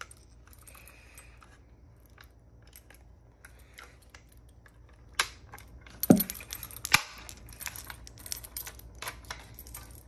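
Keys jingling and sharp plastic clicks and knocks as a Notifier NBG-12SP fire alarm pull station is handled and reset with its key. The sound is faint at first, and the clicks gather in the second half, with the sharpest knocks a little past halfway.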